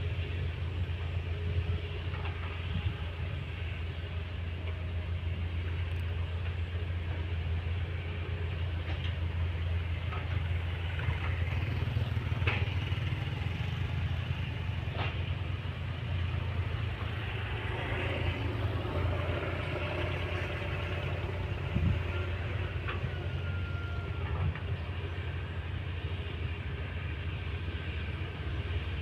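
Diesel engines of an excavator and a bulldozer working soil, running with a steady low drone, with a few sharp knocks scattered through.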